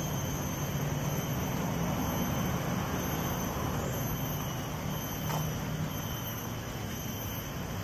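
Steady low rumble of distant road traffic, with a thin, steady high tone above it.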